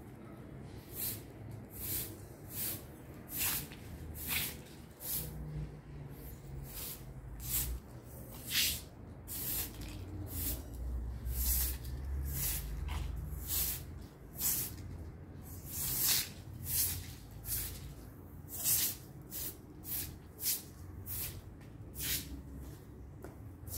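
Straw broom sweeping a concrete floor: a dry swish with each stroke, one or two strokes a second in an uneven rhythm.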